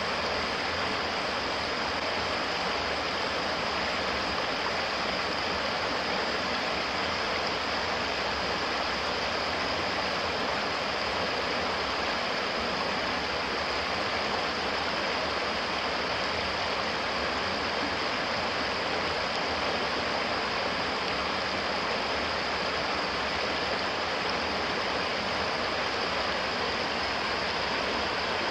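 Stream water rushing steadily over rocks and a small cascade.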